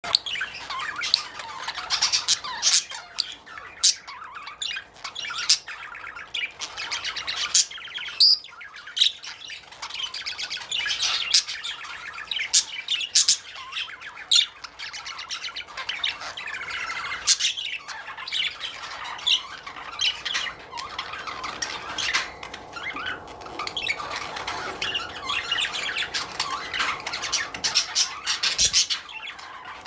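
Budgerigars chattering continuously, with frequent sharp squawks and chirps overlapping.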